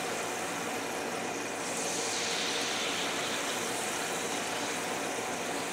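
Chickpea-flour fafda strips deep-frying in hot oil, a steady sizzle that swells briefly about two seconds in as a second strip goes into the oil.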